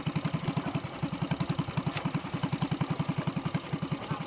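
Small fishing boat's engine idling, a steady rapid thudding of about ten beats a second.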